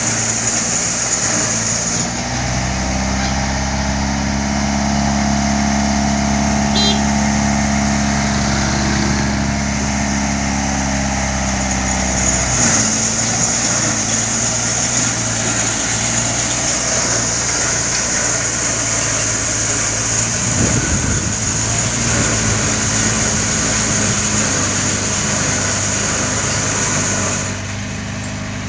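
Road roller's engine running steadily, its note changing about 2 seconds in and again about 12 seconds in.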